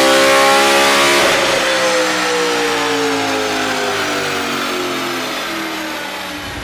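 Audi RS4 B8's 4.2-litre V8 running through its exhaust, its note rising briefly before falling steadily in pitch and fading over the next few seconds.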